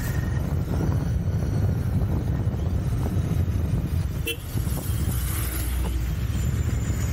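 Royal Enfield Continental GT 650's parallel-twin engine running steadily as the motorcycle cruises, heard from the rider's position, with a brief drop in the engine sound and a click about four seconds in.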